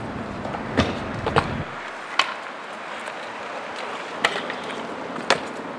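Stunt scooter's deck and wheels knocking against a concrete ledge and pavement: about five sharp knocks spread out, over a steady hiss of outdoor noise.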